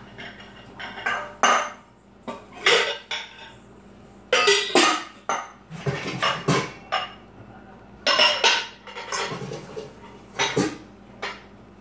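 Metal mixing bowls and pans clanking and clattering against each other in an irregular series of knocks, as a cupboard is rummaged for a bigger bowl.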